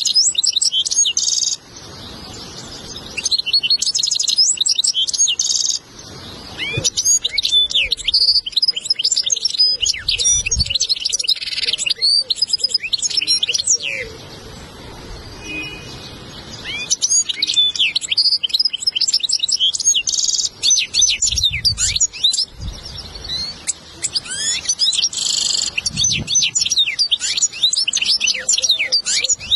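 European goldfinch singing a lesson (tutor) song: fast, tumbling twitters, trills and buzzy notes, in long bursts broken by short pauses.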